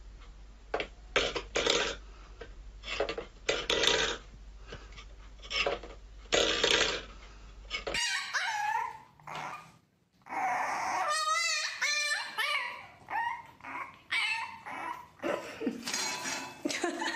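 A run of short scraping, clattering noises. Then a French bulldog puppy whines and yips in high calls that waver in pitch.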